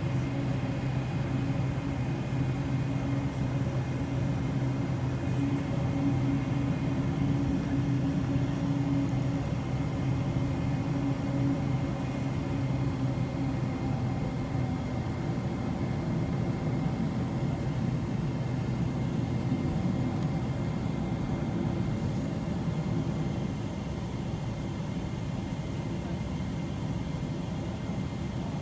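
Boeing 777-200LR's GE90 engines at low taxi thrust, heard from inside the cabin as a steady rumble with a low hum that fades about a third of the way in.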